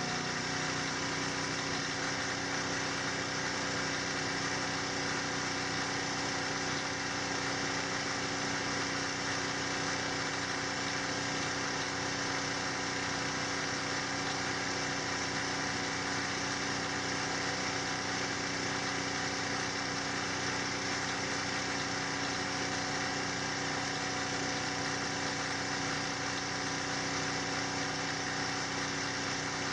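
A machine running steadily and unchanging: a hum made of several steady tones over a dense hiss.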